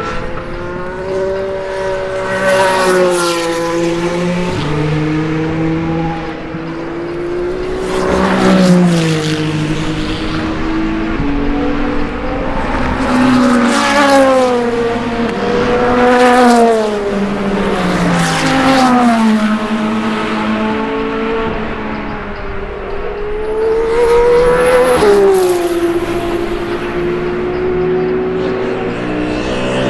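Race cars passing one after another at speed, about six passes. Each engine's pitch swells and slides as it goes by, with steps in pitch from gear changes.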